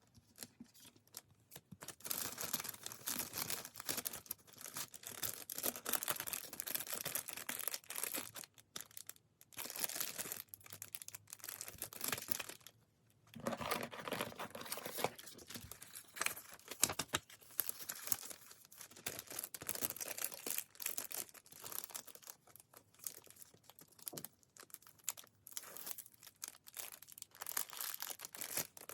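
Packaging being handled by hand: wrapping crinkling and tearing in irregular bursts, with brief pauses between handfuls.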